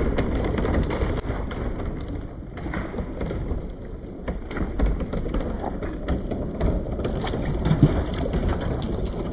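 Many glass marbles rolling and clattering along a marble run: a continuous rolling rumble broken by lots of small, quick clicks as the marbles knock together and against the track.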